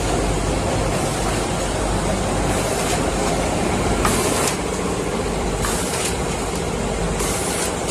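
HF 1080 automatic hot foil stamping machine running: a steady, loud mechanical clatter from the feeder and press, with a few brief high hisses over it.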